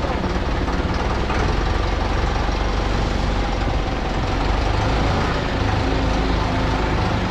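Diesel engine of heavy lifting machinery running steadily at a low, even rumble while it holds a truck engine and gearbox up on chains.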